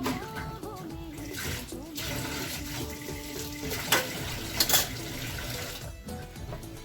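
Background music with a melody, with water running or pouring for a few seconds in the middle, and a couple of light knocks.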